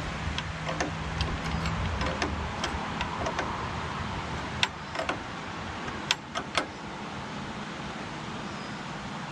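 Wrench and metal winch parts clinking as the winch brake is being adjusted, a few sharp clicks close together about five to six and a half seconds in, over a steady low hum.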